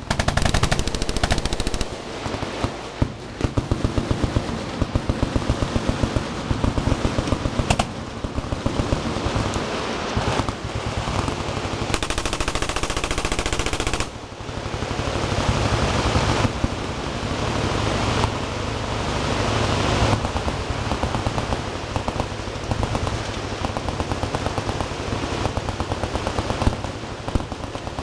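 Many machine guns firing full-auto at once, a dense continuous barrage of overlapping shots with a brief lull about halfway through.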